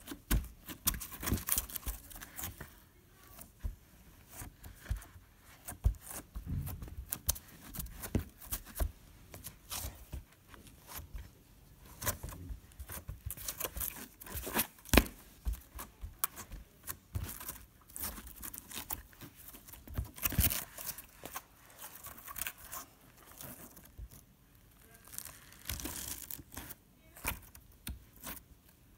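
Green glitter slime being squeezed and kneaded by hand in a plastic bowl: an irregular run of wet clicks, pops and crackles as air pockets in the slime burst, with a few brief pauses.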